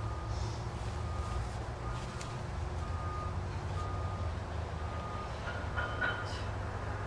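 A short electronic beep repeating evenly about once a second over a steady low rumble, with more clatter building near the end.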